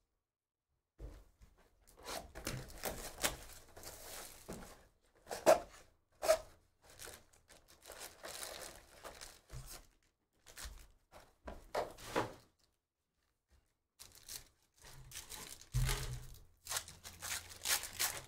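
Cardboard trading-card boxes being handled and 2023 Panini Phoenix Football foil packs being torn open: irregular ripping and crinkling with light knocks, broken by a short pause about two-thirds of the way through.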